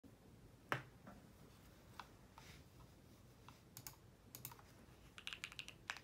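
Keystrokes on an E7-V2 mechanical keyboard with an aluminum plate, Tropical switches lubed with Krytox 205g0, and GeekArk BOW keycaps: a sharp click under a second in, a few scattered presses, then a quick run of typing near the end.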